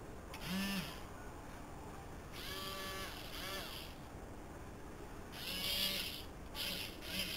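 Small electric gear motors of a toy robot arm whirring in about six short bursts, each rising in pitch as it spins up and dropping as it stops, with a gritty whine from the plastic gear trains.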